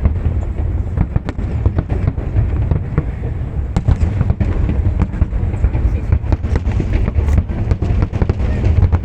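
Fireworks display: a dense, continuous run of sharp bangs and crackles over a steady low rumble.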